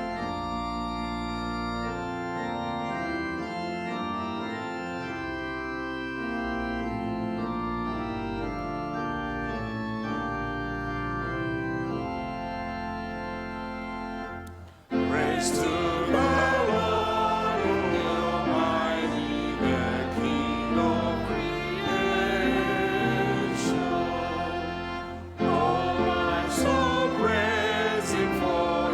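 Organ playing a hymn introduction in held chords. About halfway through it breaks off for a moment, then the congregation sings the hymn together with the organ. Near the end there is a short pause between lines.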